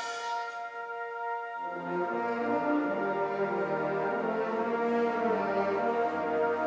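Wind orchestra playing live: a quiet held chord, then about a second and a half in a softer, brass-led passage begins with moving lower parts.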